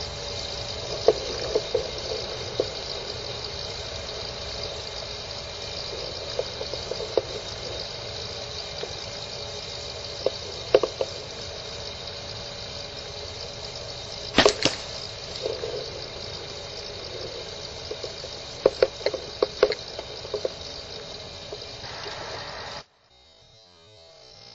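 Steady hiss with scattered small clicks and knocks of a handheld camera being handled, one sharper knock about halfway through and a quick run of them a few seconds later. The sound drops off suddenly shortly before the end.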